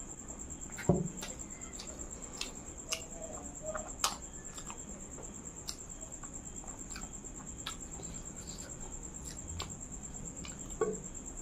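Close-up mouth sounds of a person drinking and eating by hand: scattered soft clicks and smacks, with a heavier thump about a second in and another near the end, over a steady faint high whine.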